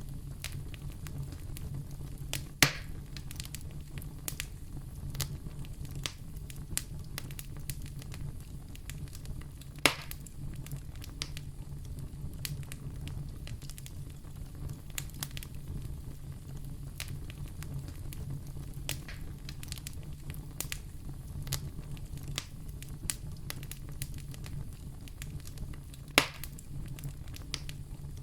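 Wood fire burning in a fireplace, crackling steadily with many small snaps over a low rumble. Three louder pops stand out: one near the start, one about ten seconds in, and one near the end.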